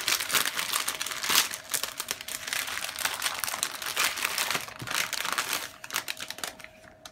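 Plastic packaging of frozen gyoza crinkling and rustling as the bag is torn open and the dumpling tray is pulled out; the crinkling dies down near the end.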